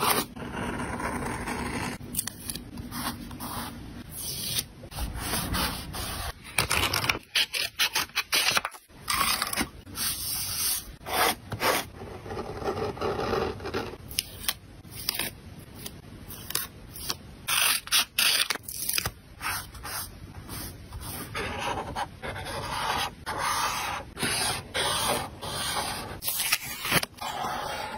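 Stickers being peeled from their backing sheet and rubbed down onto paper with a pen-like sticker tool: a steady string of short scratchy scrapes and crackles.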